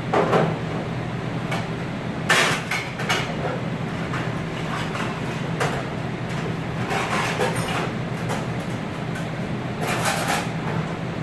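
Restaurant dish-room work noise: a steady low machine hum with sharp knocks and clatters of dishware and metal, loudest just after the start, about two seconds in, and near the end.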